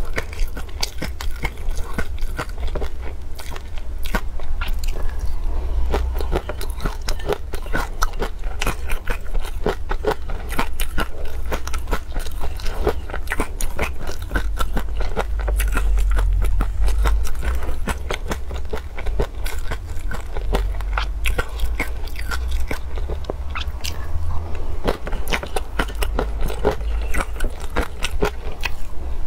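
Close-miked chewing and crunching of chunky peanut sauce: a dense run of small crackles and crunches of peanut bits in the mouth. A plastic spoon scrapes against the glass mug.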